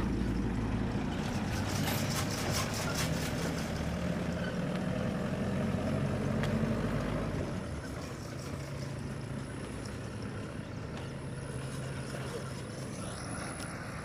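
Truck engine pulling away on a dirt track, loud at first, then dropping and fading as it moves off about eight seconds in. A few clicks and rattles sound about two seconds in.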